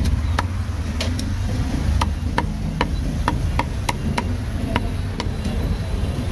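Cleaver chopping roast meat on a chopping block: sharp, uneven knocks, two to three a second, over a low rumble of street traffic.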